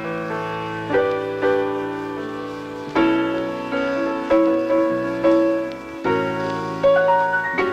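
Instrumental music: a piano playing chords and a melody, each note struck and then ringing and fading.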